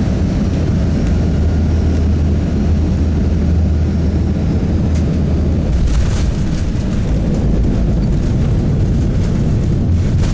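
Airbus A320 cabin noise during landing: a loud, steady low rumble of engines and airflow heard from inside the cabin, turning rougher and more rattling from about six seconds in as the aircraft reaches the runway at touchdown and rollout.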